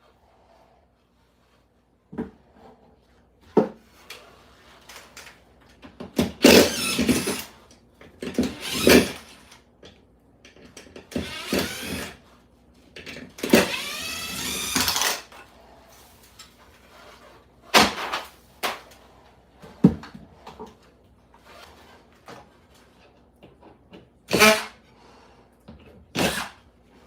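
Power drill running in short bursts of one to two seconds, its whine rising and falling in pitch, with sharp knocks and clatter in between.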